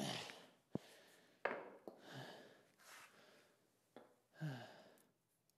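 Faint knocks and clicks as a freely swinging CV axle shaft is handled, with two short breathy sighs that fall in pitch.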